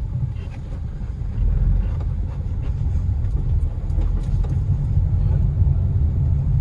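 Chevrolet Prisma driving slowly and diagonally over a speed bump: a steady low road rumble with a few faint knocks from the suspension as the body rocks. The knocking appears to come from the stabilizer bar bushing or its end link.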